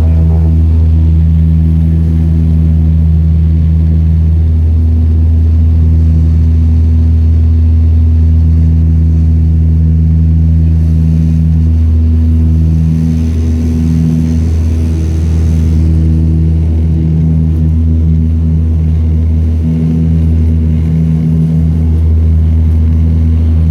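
Dash 8-100 turboprop's engines and propellers running at steady power: a loud, even low drone with a deep propeller hum and a slight waver in its upper tones.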